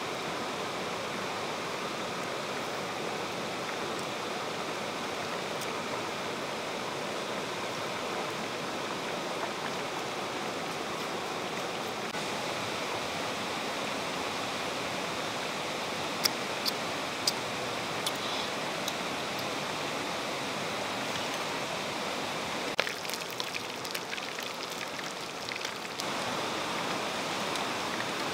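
Steady rush of flowing stream water, with a few sharp clicks a little past the middle and a short run of knocks later on.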